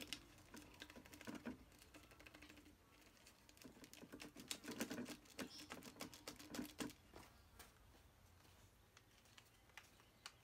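Faint scattered taps and crinkles of a small packet being shaken and tapped as its nematodes are emptied into a plastic hose-end sprayer bottle, coming in two clusters.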